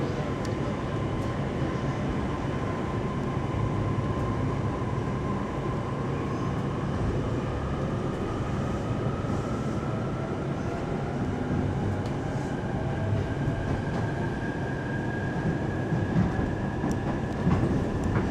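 JR East E531 series electric train heard from inside the car as it pulls away, with a steady rumble of running noise. A thin motor whine rises slowly in pitch over the second half as the train picks up speed.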